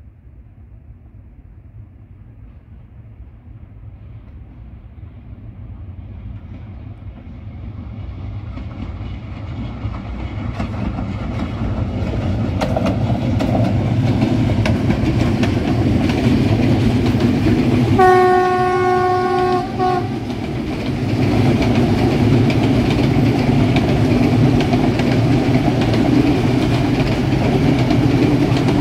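Freight train hauled by Rail Cargo Carrier locomotive 80 063 approaching and passing, its rumble growing steadily louder. About two-thirds of the way through the locomotive's horn sounds one steady blast of about two seconds, and the rumble and wheel clatter of the passing train run on.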